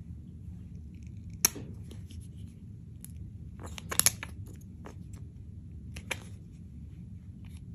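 Clear slime being worked by hand, giving a few sharp pops and clicks: one about a second and a half in, a quick cluster around four seconds, and another around six, over a steady low hum.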